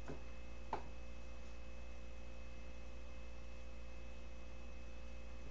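Room tone: a steady low electrical hum with a faint high-pitched whine, broken by a short click under a second in, with a fainter one just before it.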